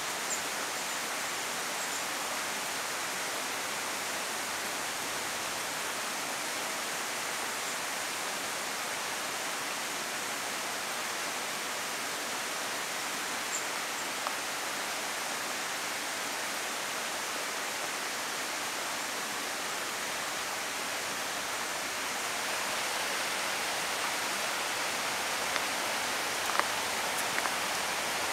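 Steady, even hiss of woodland ambience, a little louder towards the end, with a few small clicks near the end.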